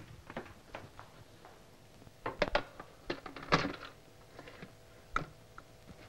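Glass bottles and glasses being handled, knocking and clinking against each other and the bar counter in scattered light clicks. The loudest cluster comes about three and a half seconds in, with a faint ring after it.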